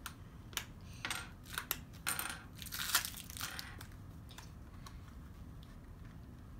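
Crinkling and crackling of the wrapping layer being peeled by hand off an L.O.L. Surprise! Confetti Pop toy ball: a run of short crackles over the first few seconds, loudest about three seconds in, then only a few faint ticks.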